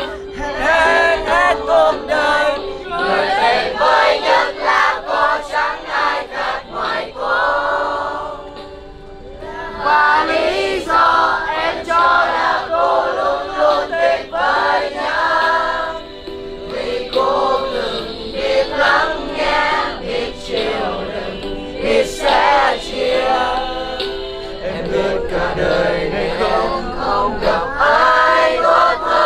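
A group of voices singing a song together over a held accompanying note, with a brief lull in the singing about eight to ten seconds in.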